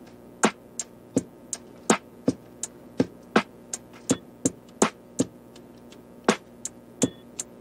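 Background music: a steady beat of sharp percussive hits, about three a second, over held low tones.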